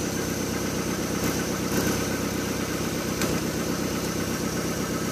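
OMC 3.0-litre four-cylinder stern-drive engine of a 1988 Larson boat idling steadily, with a few faint clicks.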